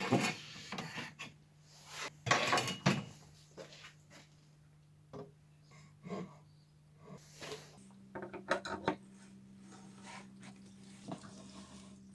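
Irregular knocks and clatter of hard objects being handled, over a faint steady hum that steps up in pitch about eight seconds in.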